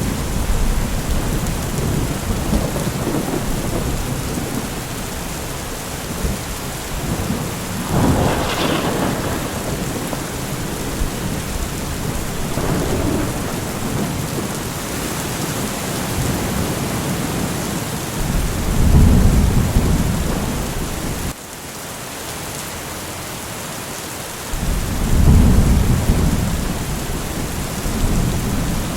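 Steady heavy rain with rolling thunder. A sharper thunderclap comes about eight seconds in, and deep rumbles swell twice in the second half.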